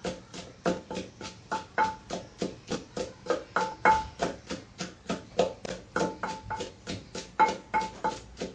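Wooden pestle pounding chilies in a clay mortar: a steady rhythm of about four to five thuds a second, some strikes giving a short ringing note.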